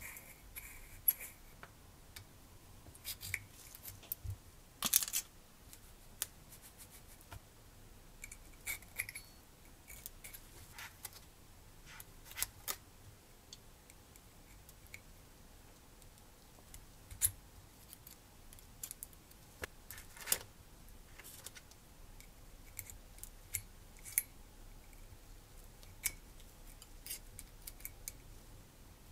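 Small metal clicks and ticks as tweezers set spur gears into a model radial engine's ring gear, metal tapping on metal. The clicks come singly and irregularly, with a short cluster of louder ones about five seconds in.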